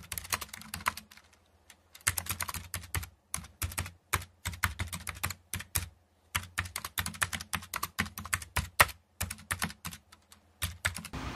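Typing on a computer keyboard: rapid, irregular clatters of keystrokes in bursts, with short pauses between them.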